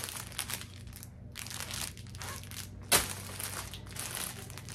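Packaging crinkling and rustling as it is handled, in irregular bursts, with one sharp snap about three seconds in.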